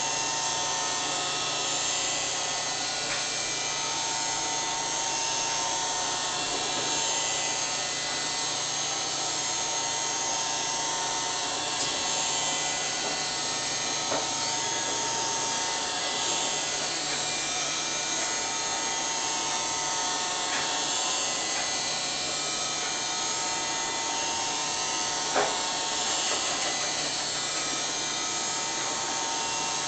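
Roomba robot vacuum running: a steady mechanical whirr with several high whining tones over a low hum, broken by a few brief clicks, the sharpest about 25 seconds in.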